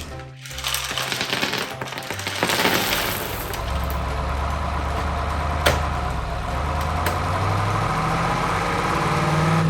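Heavy truck engine running, its low drone shifting up and down in pitch as it revs, with a sharp click about five and a half seconds in.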